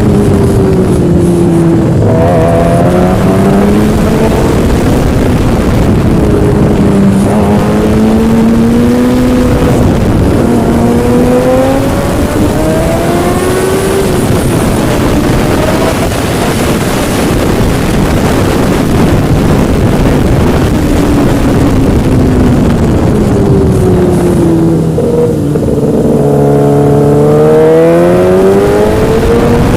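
Yamaha engine under way, its revs sinking and climbing again several times as it slows and accelerates, with a strong steady rush of wind or road noise underneath. Near the end the pitch dips and then climbs steeply.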